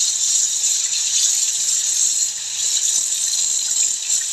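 A steady, even rushing hiss with no break.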